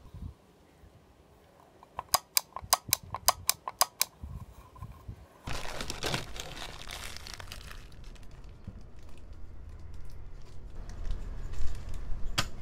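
A quick run of about eight sharp clicks, roughly four a second, then a few seconds of crinkling and rustling as small parts are handled, with a low hum and a single click near the end.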